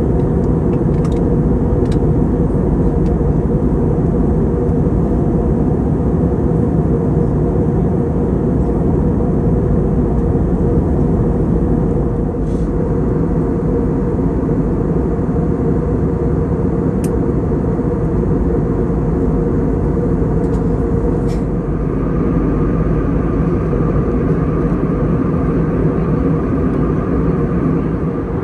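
Steady roar of cabin noise inside an Airbus A321neo in flight, heard from a window seat beside its Pratt & Whitney PW1100G geared turbofan engine. A faint higher hum joins about three-quarters of the way through.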